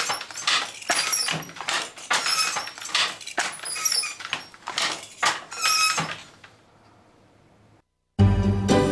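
Wooden hand loom clattering as it is worked: the beater knocking the weft into place, with the clack of loom parts, about two or three knocks a second, stopping about six seconds in. Music starts near the end.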